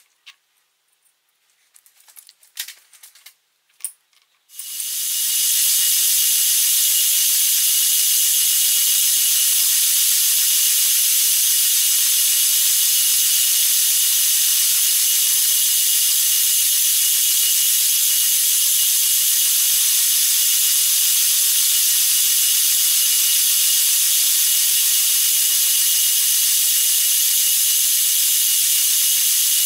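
A few light clicks and taps of handling, then about four seconds in the FYD-32 milling machine starts up and runs steadily with a high, hissing whine.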